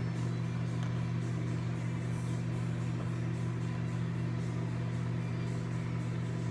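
Microwave oven running with a steady low hum while it heats.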